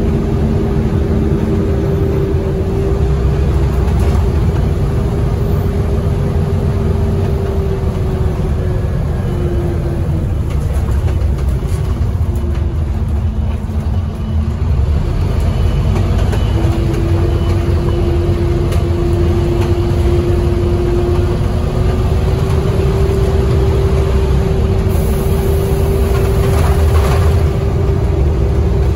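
Scania OmniCity bus heard from inside the saloon while under way: a low engine and road rumble with a steady drivetrain whine. About ten seconds in the whine sinks in pitch and fades as the bus slows. It comes back from about sixteen seconds and climbs as the bus picks up speed again.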